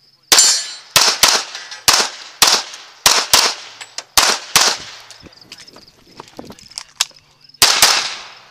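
CZ Tactical Sport competition pistol firing rapid shots, mostly in quick pairs: about ten in the first four and a half seconds, a pause of roughly three seconds, then more pairs near the end.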